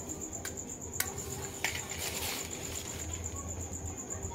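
Crickets trilling steadily in a high, fast pulse, over which a matchbox is handled: a few sharp clicks in the first two seconds and a brief rasp about two seconds in.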